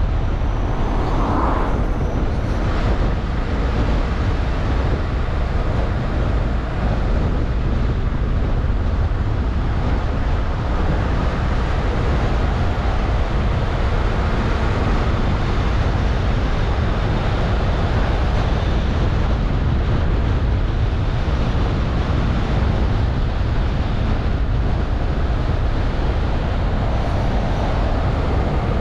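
A car driving along a road: steady low road and tyre rumble with wind noise, holding an even level throughout.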